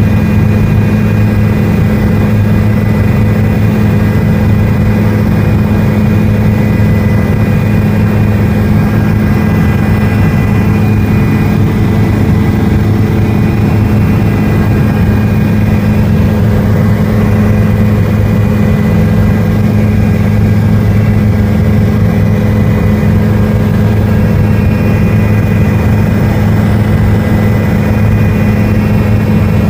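Helicopter engine and rotor drone, heard inside the cabin: a loud, steady hum with a deep low hum and faint high whines, unchanging throughout.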